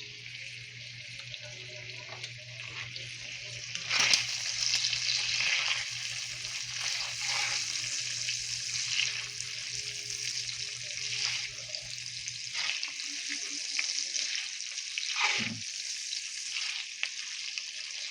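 Food sizzling in a hot frying pan, a steady crackling hiss that grows louder about four seconds in, with a few scrapes and clicks. A low steady hum underneath stops about two-thirds of the way through.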